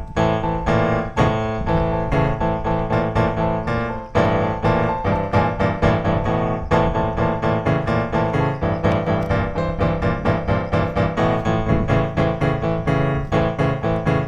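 Background piano music with quick, evenly struck notes over held chords.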